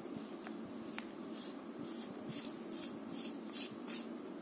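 Flashlight tail cap being unscrewed by hand: a series of short scratchy rasps, several a second, from the threads and fingers gripping the knurled metal body.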